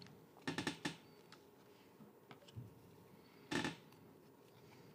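Topps Chrome trading cards sliding against each other as a stack is flipped through by hand: a quick run of scrapes about half a second in and one more about three and a half seconds in.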